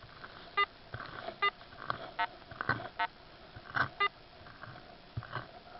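A metal detector gives short electronic beeps, five or so spaced irregularly, signalling a target in the ground. Between the beeps come sharp clicks and scrapes, as of digging in soil.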